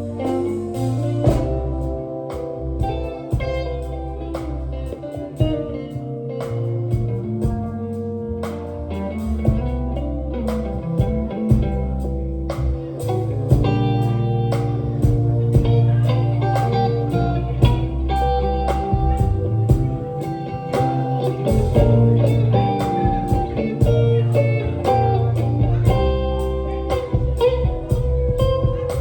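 A live band playing an instrumental break in a slow blues style: a guitar lead over bass and a steady drum beat.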